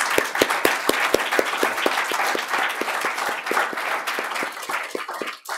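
Audience applauding. One person's claps, close to the microphone, stand out at about four a second. The applause dies down near the end.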